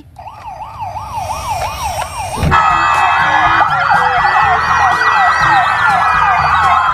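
A toy police car's electronic siren yelping fast, then about two and a half seconds in a sudden switch to several real police car sirens wailing together, quick yelps overlapping a slow rising and falling wail.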